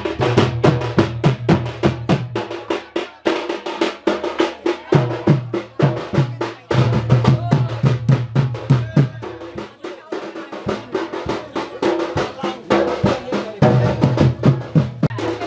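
Traditional festival drum band with a dhol playing fast, steady, loud strokes several times a second. The deep low part drops out twice and comes back.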